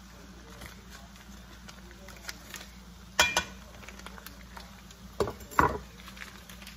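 Rustling of a butter wrapper, then a sharp knock about three seconds in and two more close together near the end.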